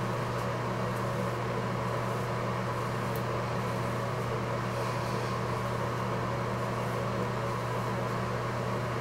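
Steady low mechanical hum with an even hiss underneath, unchanging throughout.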